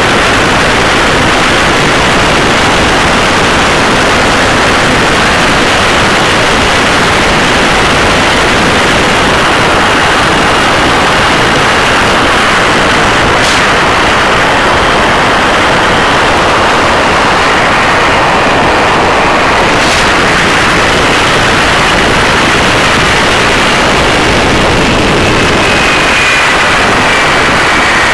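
Supercharged 572 cubic-inch Sainty quad-cam big-block engine of a ski boat running hard through open exhaust pipes, heard from on board so loud that the recording is overloaded into a steady distorted rush, with wind and spray mixed in. Two sharp clicks come about halfway through, some six seconds apart.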